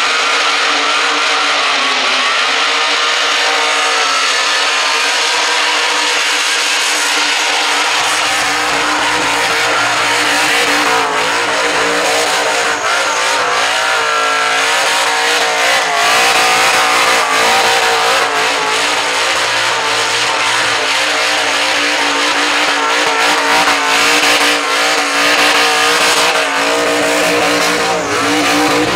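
Supercharged EFI Holden Commodore's engine held at steady high revs during a burnout, with the rear tyres spinning and squealing on the pad.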